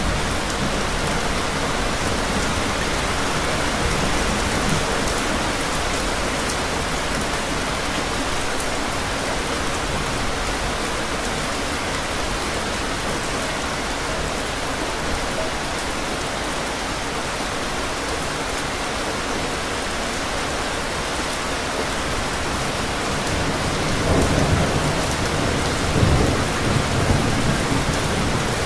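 Steady rain falling, with a low rumble of thunder building near the end.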